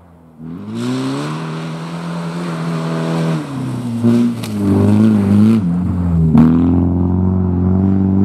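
Rally car engine on hard throttle as the car approaches through a snowy bend and passes close by, over a hiss that stops about five and a half seconds in. The engine briefly drops off the throttle about three and a half seconds in, then pulls again. There is one sharp crack about six seconds in.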